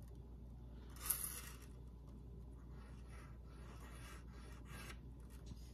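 Edge of a gold lobster-claw clasp rubbed back and forth on a black touchstone, a run of faint, quick scraping strokes from about three seconds in, laying down a gold streak for an acid purity test. A short, louder burst of handling noise comes about a second in.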